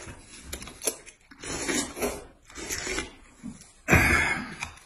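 Noodles being slurped and chewed in several short bursts, the loudest about four seconds in, with a few light clicks of utensils.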